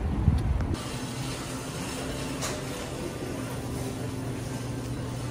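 A low vehicle rumble cuts off abruptly under a second in. It gives way to a steady low mechanical hum with a faint hiss.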